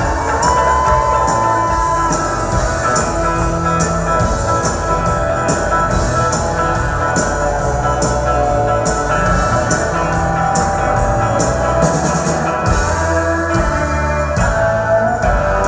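Live rock band playing: electric guitars over a drum kit keeping a steady beat of about two hits a second.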